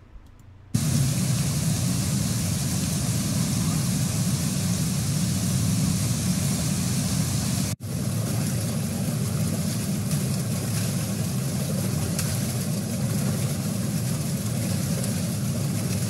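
Torrential rain and rushing floodwater: a steady, dense rushing noise, heaviest in the low end, that starts just under a second in, breaks off for an instant about eight seconds in, and then goes on unchanged.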